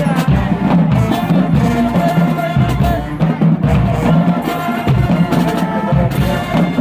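A high school marching band playing, with brass holding sustained notes over a steady beat of bass drums and snare drums.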